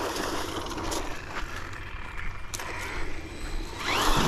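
1/10-scale electric RC truck (Hosim X-07) running on a 2S LiPo: a motor whine over its tyres scrabbling across pavement and dry leaves, with a few small knocks. The motor whine rises and falls near the end as the truck speeds up.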